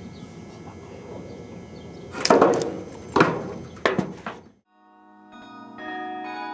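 Outdoor background noise, then three loud sharp whacks a little under a second apart, about two to four seconds in. After a moment of silence, pitched bell-like music begins and changes note.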